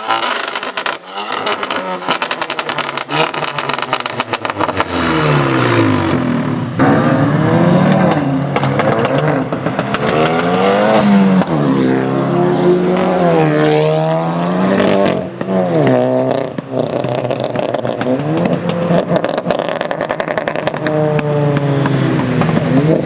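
Straight-piped Volkswagen Golf GTI 7.5's turbocharged four-cylinder engine: a burst of exhaust crackles and pops over the engine note for the first few seconds, then the engine revving, its pitch climbing and falling several times.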